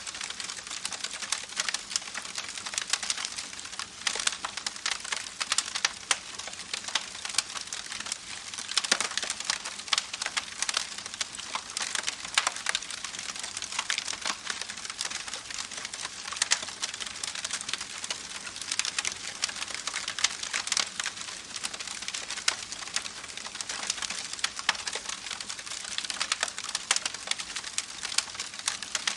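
Campfire crackling, with many sharp snaps and pops over the steady rush of a babbling creek.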